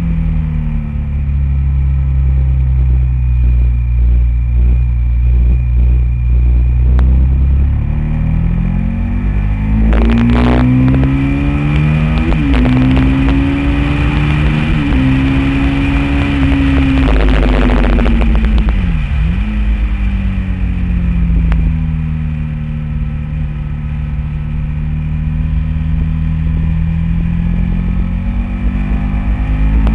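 Honda VTR1000 SP1's 1000 cc V-twin engine under way on track, heard from an onboard camera with wind noise over it. The engine pitch holds fairly steady, then climbs for several seconds with brief breaks. About two-thirds through it falls away with a sharp dip and then slowly builds again.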